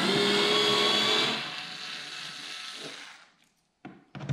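Compact cordless screwdriver spinning out T15 Torx screws from a car's plastic wheel-well liner. The motor whines at full speed for about a second and a half, then runs slower and quieter and stops about three seconds in.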